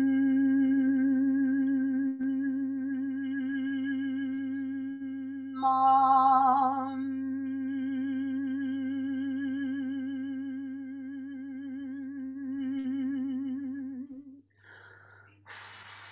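A woman humming one long, steady note with a slight waver. It turns brighter for about a second, then stops near the end, followed by a short breathy rush.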